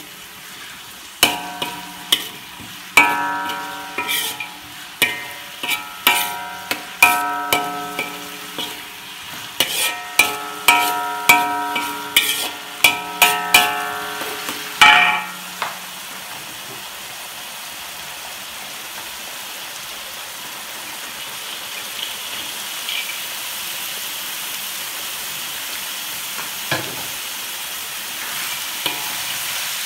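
Metal spatula striking and scraping an aluminium wok while stirring, each strike ringing on. After about fifteen seconds the strikes stop and a steady sizzle of vegetables frying continues, growing slightly louder near the end.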